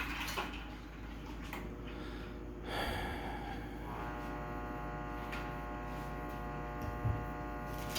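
A brief rustle of handling, then a steady buzzing hum sets in about four seconds in and holds.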